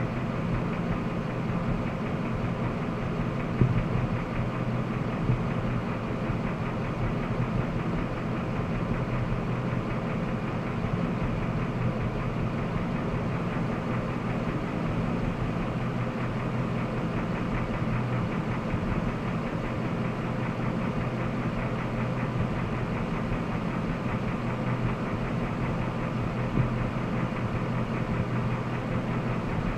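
Jasper remanufactured 5.3-litre V8 idling steadily with an unidentified noise that the owner is trying to trace. A few brief sharp knocks stand out, about four and five seconds in and again near the end.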